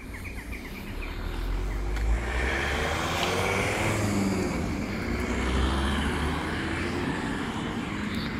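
A vehicle passing by: a rumbling motor noise swells about a second in, holds loud for several seconds while its pitch sweeps as it goes past, then eases off near the end.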